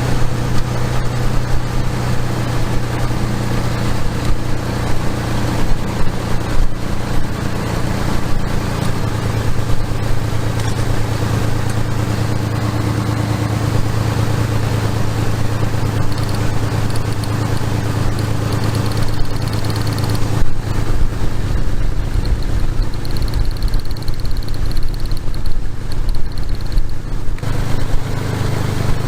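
A 2001 Ford F150's 4.2 L V6 engine running steadily. The truck has misfire codes that the mechanic traces to a weak ignition coil.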